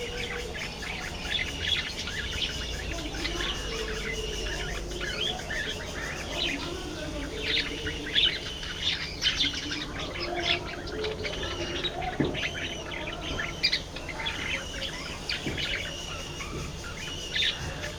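A flock of budgerigars chattering, with many short, overlapping chirps and warbles.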